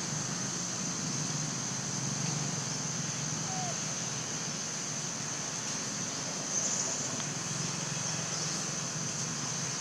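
Steady outdoor background noise: a constant high-pitched hiss over a low hum. A brief faint squeak comes about three and a half seconds in.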